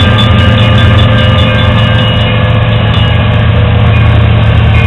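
CSX diesel locomotives running with a loud, steady low rumble as an intermodal train approaches a grade crossing. A crossing bell rings faintly in the background.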